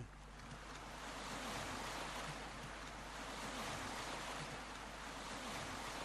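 Sea waves washing onto a shore: a steady rushing that slowly swells and eases.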